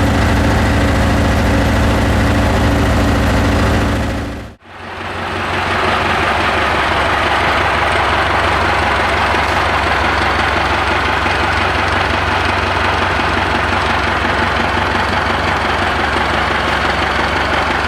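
1960s Bristol bus's diesel engine running steadily as the bus drives slowly, heard from on board. It drops out briefly about four and a half seconds in, then carries on with more rattle and hiss.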